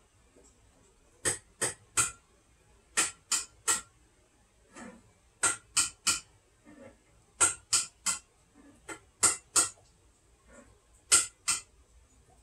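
Sharp clinks of something hard tapping on a sealed glass pickle jar, in quick runs of two or three.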